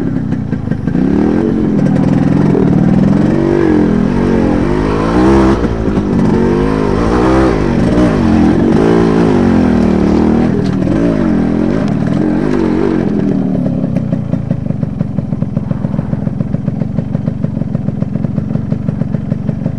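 Motorcycle engine revved up and down over and over as it works over rough ground. About two-thirds of the way through it settles into an even idle, a steady beat of about five pulses a second.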